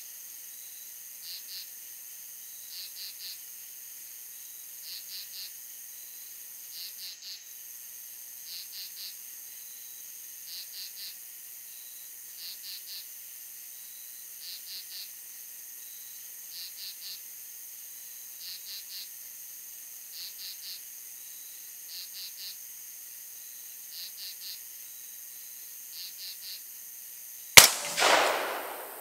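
Crickets chirping in a slow, even rhythm, a short group of two or three chirps about every two seconds, over a steady high hiss. Near the end a single loud, sharp rifle shot with a trailing echo.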